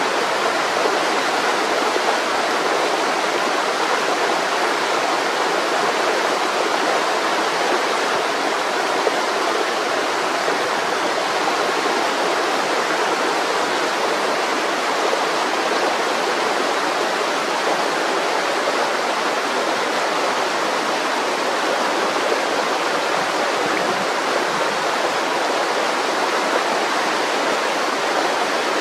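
Mountain river flowing: a steady, even rush of water with no change.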